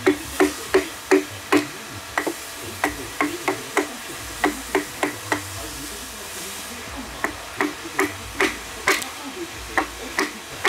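Wooden mallet striking a steel chisel into a wooden log: a run of sharp knocks, about two or three a second, pausing for a second or so around the middle before the strokes resume.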